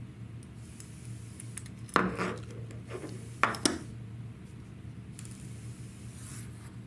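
Small metal air-gun parts clinking as the trigger and its pin are handled and fitted to the gun body: one sharp click about two seconds in, then two more in quick succession about a second and a half later, over a low steady hum.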